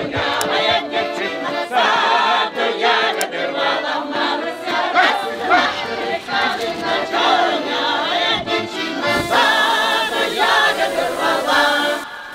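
Several voices singing together in chorus, dropping off sharply near the end.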